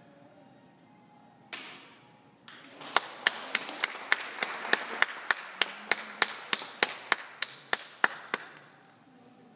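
Audience applauding, with one person clapping close by, loud and even at about three to four claps a second, over the general applause. A brief burst of noise comes just before it, about a second and a half in.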